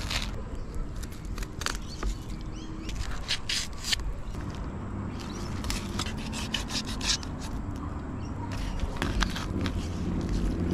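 Kitchen knife cutting and scraping through a parrotfish on a plastic cutting board, filleting it off the backbone and then running the blade under the skin, in short, irregular rasping strokes.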